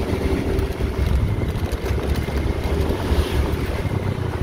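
Wind buffeting the microphone while riding, over a small motorcycle engine running steadily.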